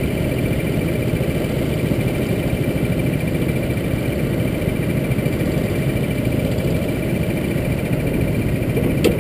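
Go-kart engines idling steadily on the starting grid, a constant low mechanical noise, with a short knock near the end.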